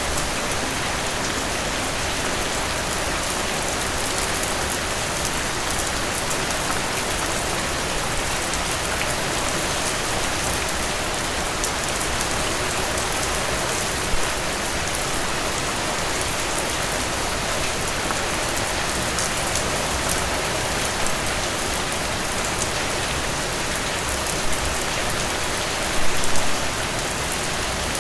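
Steady rainfall pattering on a surface, an even dense hiss of drops, with a few louder nearby drops splashing about halfway through and again near the end.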